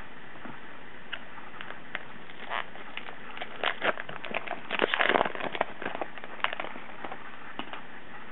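Crinkling and crackling of a foil trading-card pack wrapper being torn open and handled, with the cards rustling. The crackle is busiest about halfway through.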